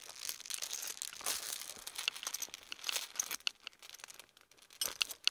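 Rustling and irregular sharp clicking from a body-worn microphone rubbing against a shirt button as the wearer bends and moves.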